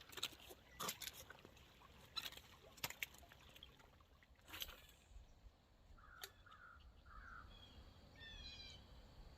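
Faint outdoor sounds: a few sharp clicks and knocks from handling gear during the first half, then three caws from a distant crow about six to seven seconds in. A small bird chirps a quick run of notes near the end.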